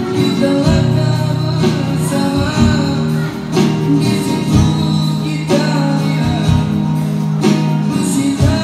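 A man singing live to an acoustic guitar strummed in a steady rhythm, roughly a chord a second, amplified through a PA speaker.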